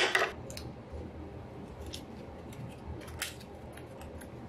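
Small paper seed packet being handled and opened: a loud paper crackle at the start, then a few short sharp clicks, like scissors cutting the packet.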